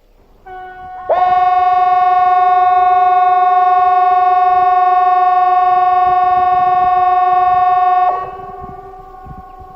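CA 370 outdoor warning siren sounding one steady, loud tone for about seven seconds. It starts faintly and reaches full volume about a second in, then drops near the end to a fainter lingering tone. This is the seven-second blast of Sweden's quarterly test of the 'Important message to the public' signal.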